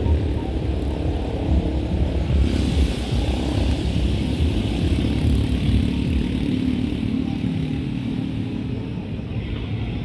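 A motor vehicle engine running close by over a low rumble, its pitch wavering in the second half.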